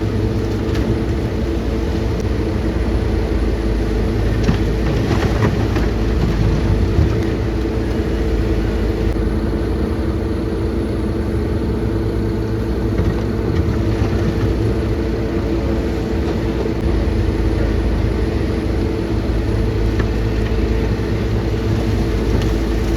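Heavy diesel engine of a hydraulic excavator running steadily, with a few short knocks about five seconds in.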